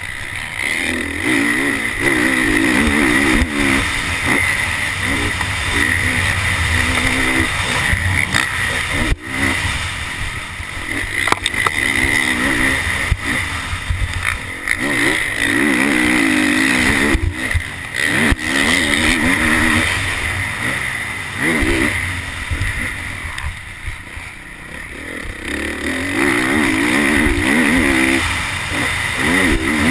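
Honda CRF450R's single-cylinder four-stroke engine revving hard and easing off again and again while ridden flat out over a motocross track, heard onboard. The throttle is shut off briefly several times, around the jumps and corners.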